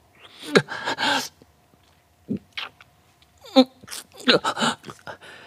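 Love-scene excerpt from a Japanese BL drama CD with no spoken lines: two men's breathing, gasps, brief moans and kiss sounds, coming in short separate bursts.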